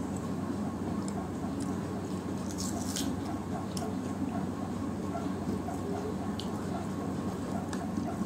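Eating rice and curry by hand: wet squishing as fingers mix the rice, and chewing, with scattered small clicks and a cluster of crackly clicks about three seconds in, over a steady low hum.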